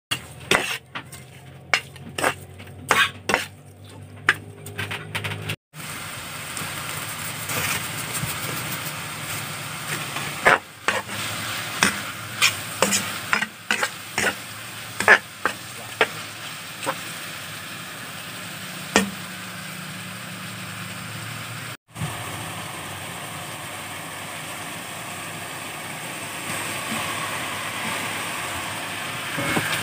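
Chicken pieces with onion, tomato and garlic sizzling in oil in a pan, with a spatula knocking and scraping against the pan at irregular intervals as the food is stirred.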